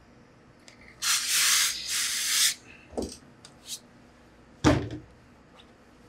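Steam iron blasting steam into wool trousers in two hissing bursts lasting about a second and a half in all, then a light knock and a heavier thump on the wooden worktable as the pressing board is moved aside.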